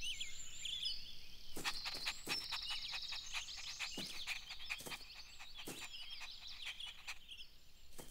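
Small birds chirping and twittering steadily in a garden ambience, with a scatter of sharp light taps at irregular moments.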